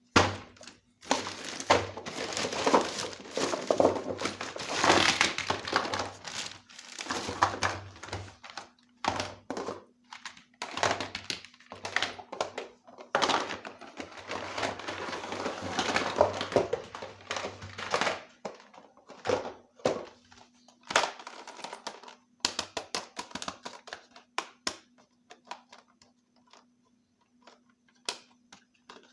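Plastic packaging crinkling and rustling in bouts while a toy set is unboxed. Toward the end it gives way to sparse clicks and light taps of small plastic pieces being handled.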